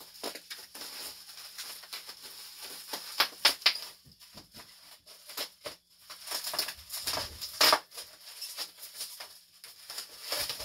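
Bubble wrap crinkling and rustling in irregular bursts as it is unwrapped from a metal train-horn bell, with a few louder crackles a little over three seconds in and past the middle.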